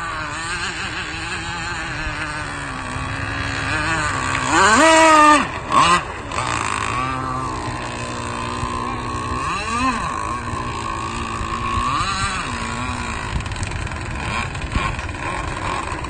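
Zenoah 29.5 two-stroke gas engine of an RC rigger boat running at speed on the water. Its revs surge up sharply about five seconds in, the loudest point, then rise again briefly twice later.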